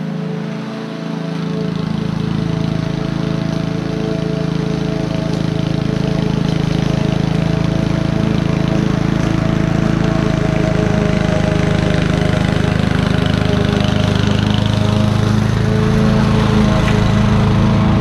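Honda self-propelled lawn mower's four-stroke engine running steadily under load while mowing and mulching grass, growing louder and fuller about a second and a half in.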